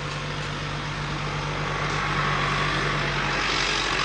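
Vehicle engine idling steadily, its pitch dropping slightly about three and a half seconds in.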